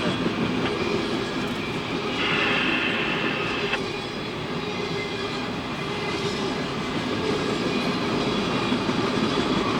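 Train cars rolling past on the rails with a steady rumble and wheel clatter, and a brief high wheel squeal about two seconds in.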